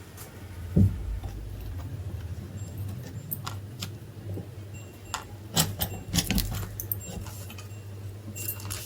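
Scattered metallic clinks and knocks, a few sharp ones close together past the middle, over a steady low hum.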